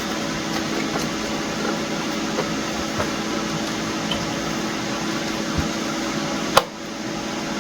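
Steady machine hum and hiss, like a fan running, with one sharp click about six and a half seconds in.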